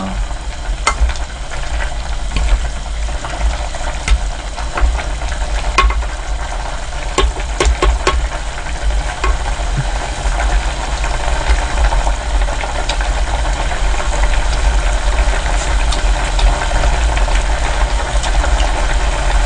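Pot of beef seaweed soup bubbling on the burner with a steady low rumble. A ladle stirs it and knocks against the pot several times in the first half.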